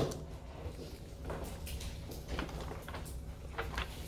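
Dry-erase marker writing on a whiteboard: faint, short scratchy strokes at irregular intervals over a low steady room hum, with a sharp knock right at the start.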